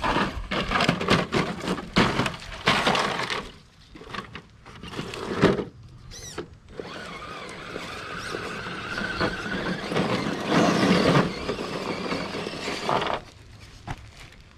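Element RC Enduro Trailwalker RC crawler driving over wooden plank steps and dirt: knocking and scraping of its tires and chassis on the planks, then a steady whine of its electric motor and gearbox under load, which cuts off about 13 seconds in.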